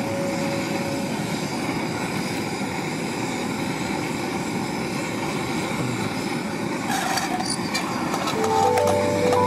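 Portable gas camping stove burner running under a cookset pan with a steady hiss while the oil heats. A few light clicks come about seven seconds in, and background music comes in near the end.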